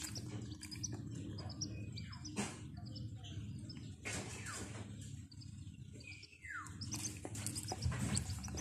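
Baby chick peeping: a scattered string of short, high chirps with a few falling peeps, over a low steady background hum.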